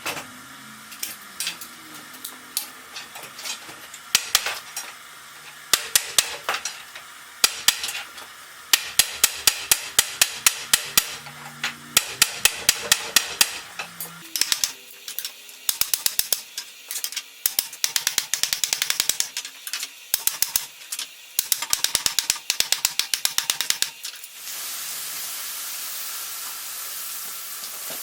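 Hammer blows on wooden wagon-wheel work, coming in quick runs of strikes that grow denser toward the middle. About 24 seconds in the blows give way to a steady hiss.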